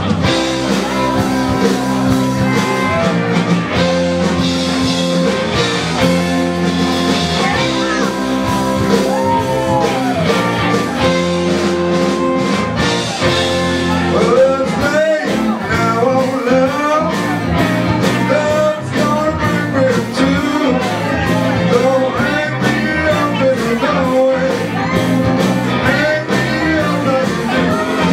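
Live blues-rock band playing: electric guitar over bass and drums, with singing.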